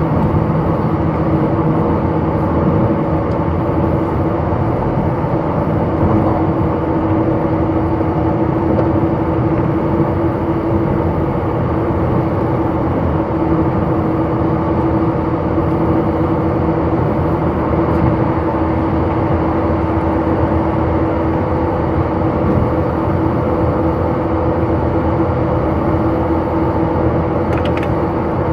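Running noise heard inside a JR 185 series electric train car travelling at speed: a steady rumble of wheels on rail with a steady droning tone running through it.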